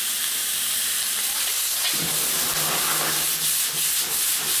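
Beef, onion and tomato sizzling in a wok over a high gas flame as they are stir-fried. About two seconds in, a lower rush joins the hiss as the burner's flame flares up into the pan.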